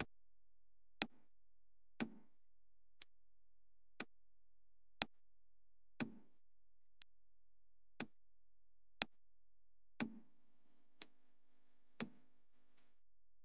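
Faint clock ticking, one sharp tick every second. A faint low hum joins under the ticks about ten seconds in and stops near the end.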